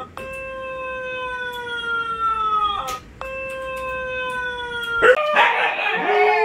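Siberian husky howling: two long howls, each held for about two seconds and sliding slowly down in pitch. About five seconds in, a louder, rougher burst of dog vocalizing follows, and another howl starts near the end.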